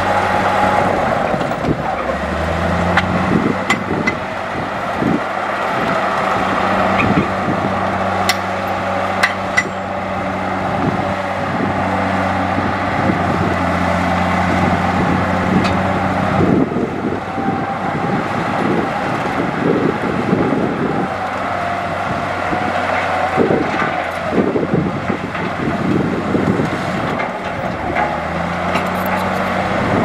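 Heavy diesel earthmoving machinery running under varying load, its engine note rising about two seconds in, dropping back around the middle and rising again near the end, with a wavering whine and scattered clanks and knocks.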